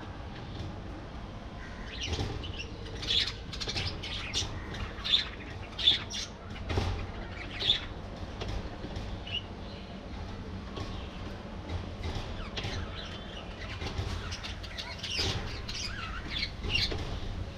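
A flock of budgerigars chirping and chattering, with short sharp calls coming thickest between about two and eight seconds in, over a steady low rumble.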